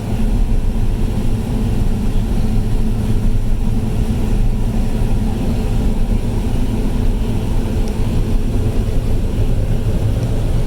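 Combine harvester running steadily while shelling corn: a constant low engine and machinery drone.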